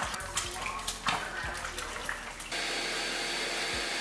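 A few light knocks and kitchen clatter, then about two and a half seconds in, a countertop blender comes on suddenly with a steady whir, blending a green smoothie.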